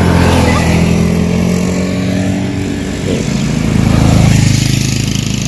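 Motorcycle engine running steadily, swelling louder about four seconds in.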